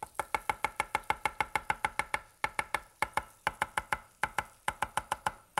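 Chinese cleaver chopping green onions on a wooden cutting board: rapid, even strikes of about eight a second, each with a brief ring from the blade, in runs broken by short pauses.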